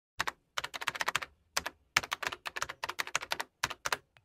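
Computer keyboard typing sound effect: quick runs of key clicks broken by short pauses.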